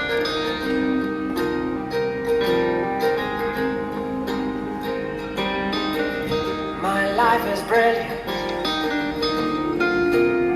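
Background music led by plucked acoustic guitar notes, with a short wavering melodic phrase about seven seconds in.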